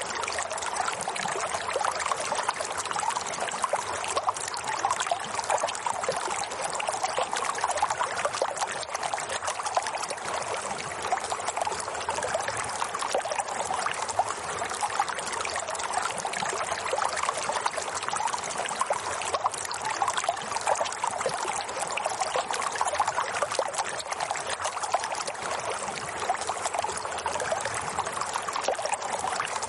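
Running water trickling steadily, a continuous flow like a small stream.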